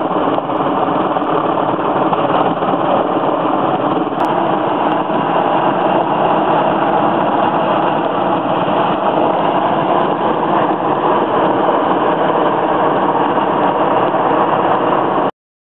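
Sikorsky Sea King helicopter's twin turbine engines and rotor, a loud steady drone overhead that cuts off suddenly near the end.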